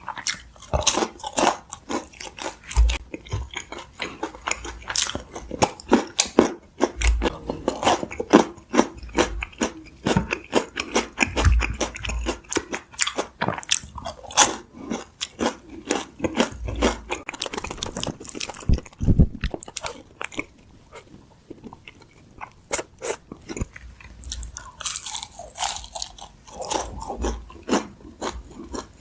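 Close-miked eating: many short bites, crunches and chewing sounds from sauce-coated fried chicken, thinning out for a few seconds past the middle before picking up again.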